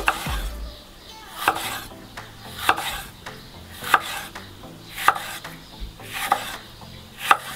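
Wide cleaver-style kitchen knife slicing a red bell pepper into strips on a wooden cutting board. Each cut ends in a sharp knock of the blade on the board, about one every second or so, seven in all.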